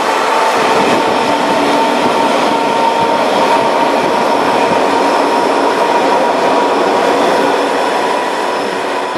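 Old communist-era railway passenger coach rolling along at speed, heard from inside: a steady, loud rumble and rattle of wheels on rail, with a steady high-pitched whine running through it.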